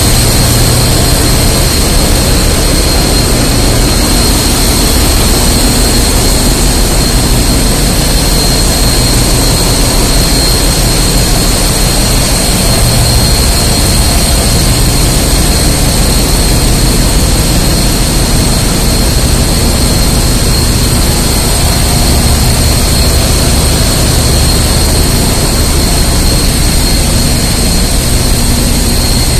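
Engine-room machinery of a container ship, with the diesel auxiliary engines running. It makes a loud, unchanging drone with a thin high whine held steadily over it.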